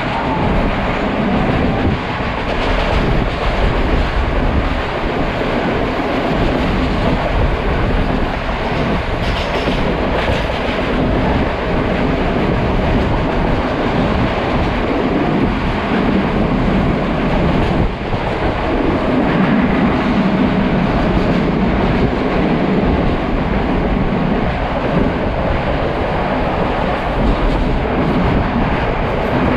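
Passenger train hauled by a Canadian-built Class M4 diesel locomotive, heard from an open carriage window as it runs fast and picks up speed: a steady, loud rumble of wheels running over the rails.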